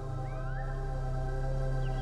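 Ambient meditation music tuned to 432 Hz: sustained chords held over a deep bass drone. A short rising glide comes about half a second in, and a run of quick falling chirps starts near the end.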